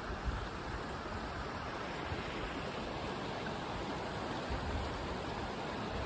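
Creek water running over rocks: a steady rushing hiss of flowing water, with a few brief low rumbles.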